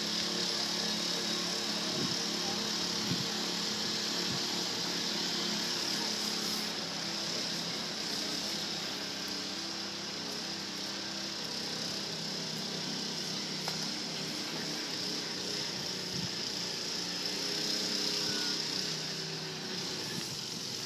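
Steady drone of a running engine or machine, with a constant high hiss above it; its pitch shifts slightly partway through.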